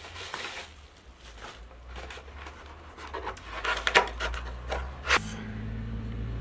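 Handling noises from unpacking and handling a porcelain teacup and plate: rustling and scuffing, with a run of short sharp clicks and knocks about four to five seconds in. A low steady hum comes in near the end.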